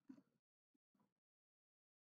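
Near silence, with a few very faint keyboard clicks in the first half as a line of code is typed.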